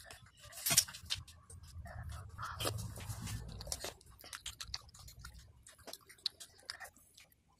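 A metal spoon clinking and scraping against a ceramic plate of chicken porridge, with soft eating sounds between. There is one sharp clink about a second in, and a longer, fuller stretch of scraping from about two to four seconds in.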